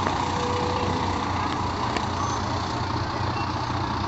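Fire department aerial ladder truck's diesel engine running steadily as the truck rolls slowly past at parade pace.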